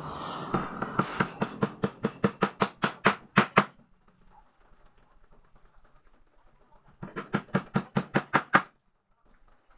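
Hammer knocking on the wooden parts of a chair frame being assembled: two runs of quick, even blows, about five a second, the first lasting about three seconds and the second starting near the end.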